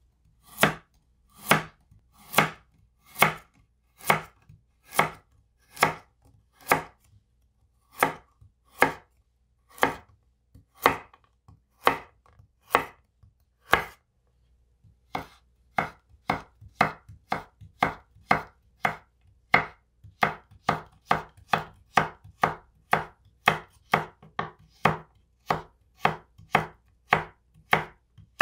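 Victorinox 8-inch chef's knife chopping carrots on a wooden cutting board, each stroke a sharp knock of the blade through the carrot onto the wood. The strokes come about once a second at first, then after a short pause near the middle they quicken to about two a second.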